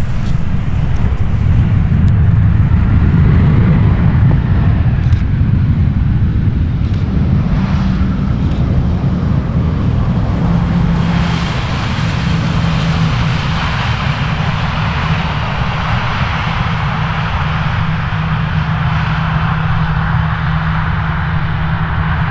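Airliner's engines running loud and steady, with a held low hum; a hiss higher up grows stronger about eleven seconds in.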